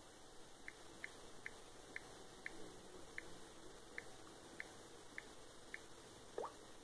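Typing on a Samsung Galaxy S5's touchscreen keyboard: about ten faint ticks at uneven, roughly half-second spacing as the keys are tapped, followed by a brief rising squeak near the end.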